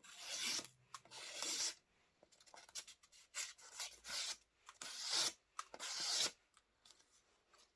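Hands handling the knife and its packaging: a series of short rubbing, scraping strokes that stop shortly before the end.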